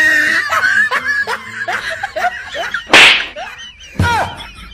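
Men laughing and snickering, with one loud sharp smack about three seconds in.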